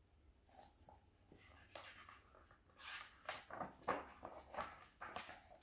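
Pages of a paperback picture book being handled and turned: a run of soft paper rustles and crinkles, the loudest in the second half.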